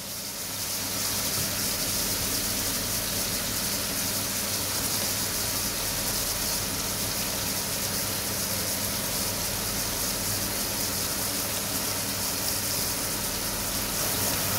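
Beef hamburger patties sizzling steadily in hot fat in a non-stick frying pan, the sizzle growing louder about a second in and then holding, with a low steady hum underneath.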